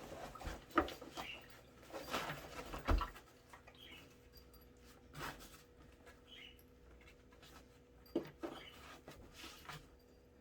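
A plastic portable flushing toilet being shifted and pushed back inside its fabric carrying bag: irregular rustling and scraping, with a few knocks, the sharpest about a second in and just under three seconds in.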